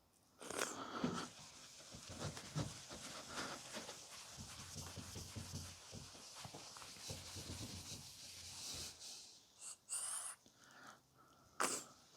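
Microfiber cloth rubbing plastic polish over a plastic car headlight lens by hand, a steady scrubbing, with a short squeak about ten seconds in and a brief sharp knock near the end.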